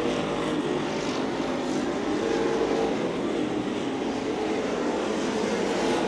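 Several street stock race cars' engines running at racing speed, a steady mixed drone.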